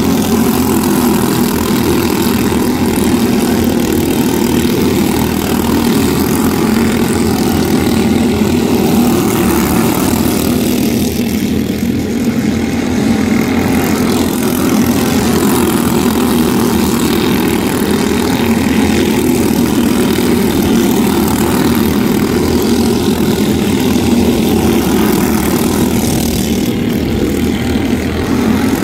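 Several quarter midget race cars' small single-cylinder engines running together as the cars circle a dirt oval, a steady, loud buzzing drone that never lets up.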